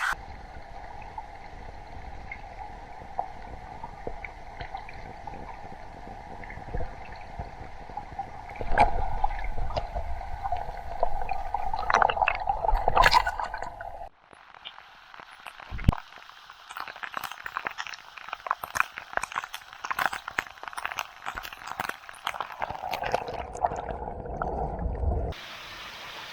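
Water of a small waterfall and its pool splashing and gurgling, with many small splashes and drips. The sound changes abruptly about halfway through and again near the end.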